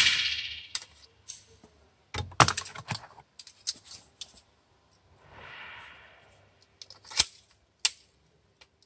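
Scattered sharp clicks and light metallic ticks around a suppressed .22 pistol, with a loud one about two and a half seconds in and another about seven seconds in. A soft rustle comes near the middle.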